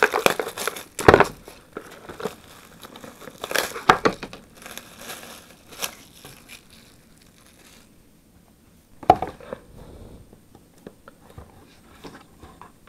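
Clear plastic shrink-wrap being torn and peeled off a cardboard card box, crinkling in irregular bursts for the first several seconds and then more softly. A sharp thump about a second in and another sharp stroke about nine seconds in.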